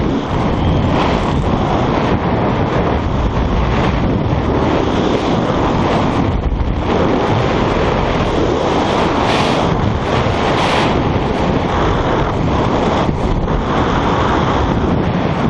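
Strong, steady wind rushing over the microphone.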